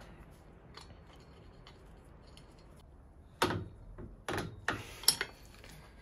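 A few sharp metallic clicks and knocks of steel parts, as a bicycle crank arm is fitted onto the bottom bracket axle. They start about three and a half seconds in and come over roughly two seconds, after a quiet stretch.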